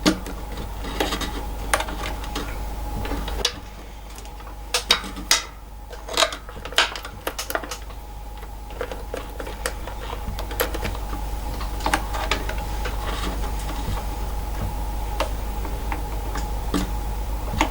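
Small irregular clicks and taps of hands working electrical wire into a switch's terminals, over a steady low hum.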